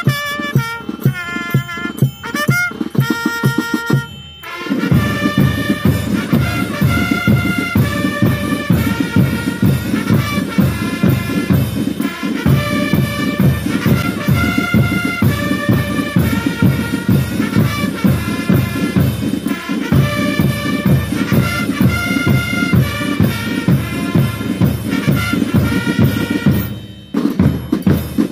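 Brass-and-drum marching band playing: a bass drum and other drums beat steadily under a brass melody. About four seconds in the sound drops briefly, then the full band comes in louder, and it dips again briefly near the end.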